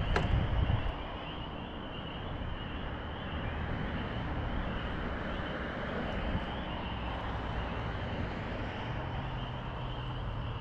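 Wind rumbling over the microphone, louder and gustier in the first second, then settling into a steady low rush, with a faint steady high-pitched hum underneath.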